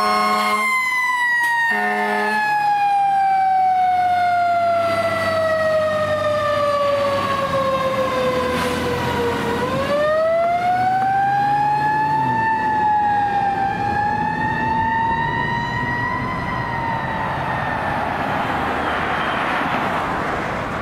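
Fire engine's mechanical Federal Signal Q siren winding down in one long falling wail over about nine seconds, then spun back up, rising with a dip and fading out near the end. A brief horn blast comes about two seconds in, and the truck's engine and traffic noise run underneath.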